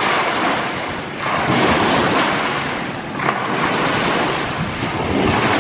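Small waves washing onto a lakeshore, coming in four swells roughly every one and a half to two seconds.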